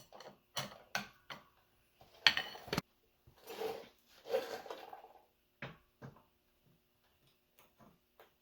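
Metal tools and parts being handled on a workbench: a string of clinks and knocks, with a louder clank about two seconds in, followed by two longer scraping sounds.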